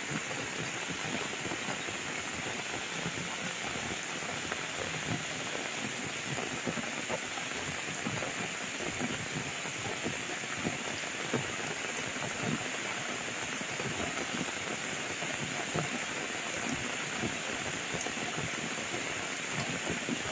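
Steady rain falling on floodwater: an even, continuous hiss with a fine patter of drops.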